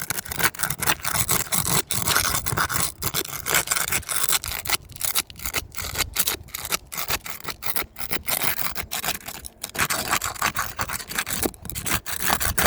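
Repeated scraping and rubbing against a 3-tab asphalt roof shingle, many short strokes with brief gaps between them, as the shingle is worked up off its seal strip.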